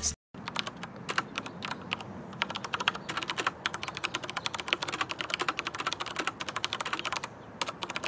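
Typing on a Perixx PX-5200 mechanical keyboard with Cherry MX Brown switches: a fast, uneven run of keystroke clacks that thins out near the end. The brown switches are tactile but have no click.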